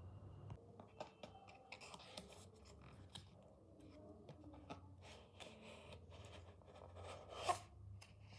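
Small cardboard packaging being handled and opened: quiet scratching, rubbing and light clicks as the pull tab is peeled and the box lid slid off, with one louder scrape near the end.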